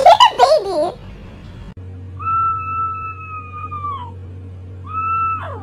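A small tan dog howling: one long, steady howl that sags in pitch at its end, then a shorter howl that breaks off with a sudden drop. Before that, in the first second, a brief loud vocal sound from the previous clip.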